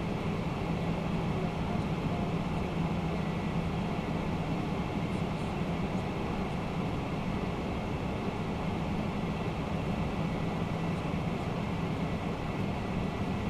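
Steady flight-deck noise of a Boeing 767-300ER: an even rush of air and engine noise with a constant low drone.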